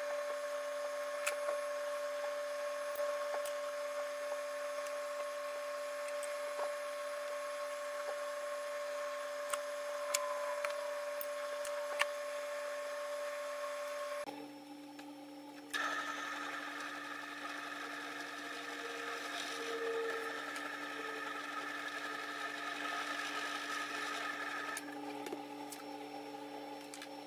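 Steady machine hum in a woodworking shop, with a few faint light clicks. About halfway through it cuts to a different, somewhat brighter steady hum.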